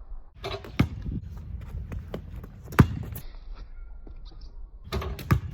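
Quick running footsteps of a run-up, then sharp thuds as a basketball is dunked on a low rim and bounces. The loudest thud comes about three seconds in, with smaller impacts before and after.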